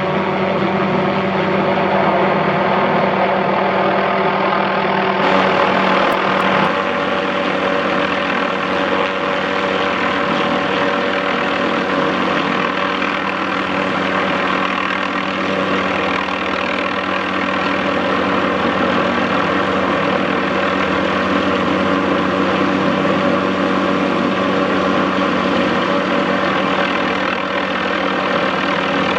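MD530F helicopter's turboshaft engine and rotors running steadily, a dense hum of many steady tones. The tone pattern shifts about five to seven seconds in.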